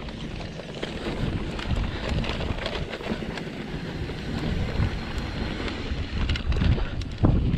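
Wind buffeting a camera microphone on a mountain bike rolling fast down a dry dirt trail, with the tyres and bike rattling and clicking over the bumps. There is a louder jolt near the end.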